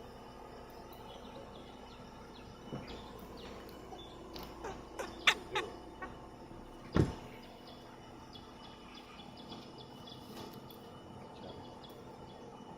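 Birds calling over steady forest ambience, with a cluster of short sliding calls about five seconds in. A single low thump comes about two seconds later.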